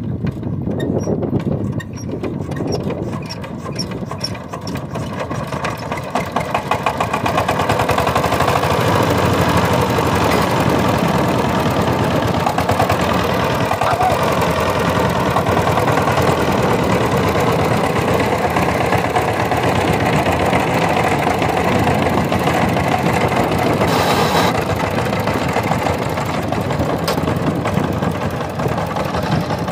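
Single-cylinder diesel engine of a Sifang walk-behind power tiller running with a rapid, even knock. It picks up in speed and loudness about six to eight seconds in, then runs steadily.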